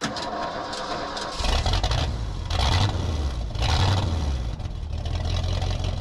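A large engine catching about a second and a half in and then running with a low engine note that swells up and down a few times.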